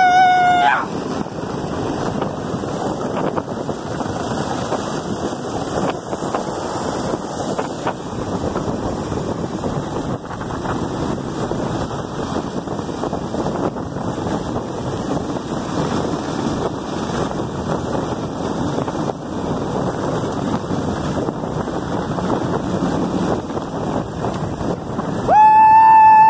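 Steady rushing noise of a dog-pulled sled sliding fast over snow, with wind buffeting the microphone. A held whoop sounds briefly at the start, and a louder one near the end.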